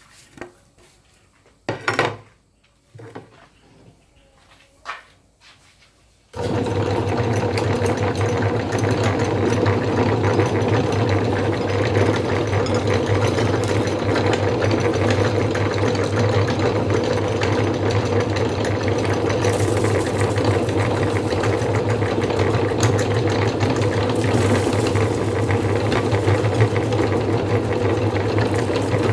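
A few short knocks, then about six seconds in an electric meat grinder switches on and runs steadily with a hum as it grinds peanut snack.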